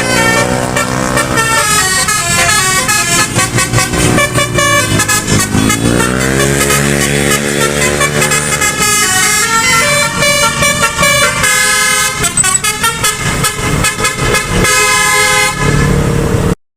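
Indonesian 'telolet' multi-tone bus horn playing a melody: quick stepping notes with a few swooping pitch slides. It cuts off abruptly near the end.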